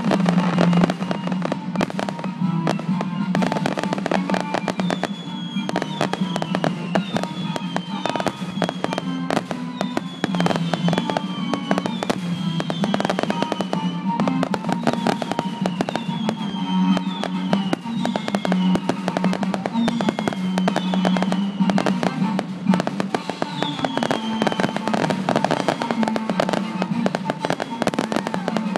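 Aerial fireworks display going off without pause: a dense barrage of bangs, pops and crackling shell bursts.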